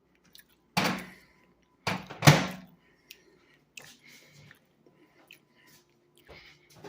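Kitchen handling noises: three sharp thumps about a second apart, the third the loudest, then a few faint clicks.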